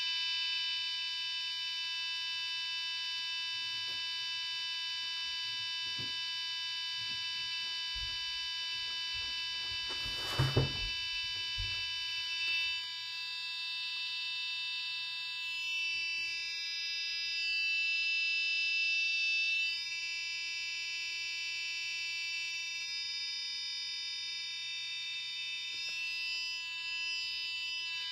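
Electronic buzzer in a wired-up stuffed-animal gadget giving a continuous, shrill alarm-like tone. A few soft thumps come about ten seconds in, and the tone wavers while the toy is handled.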